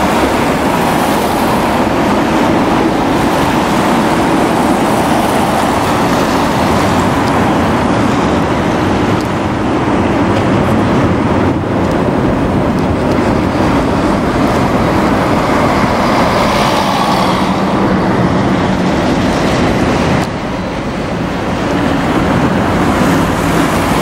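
Busy city street traffic noise: cars and other vehicles passing steadily on the road, with a brief dip in level about twenty seconds in.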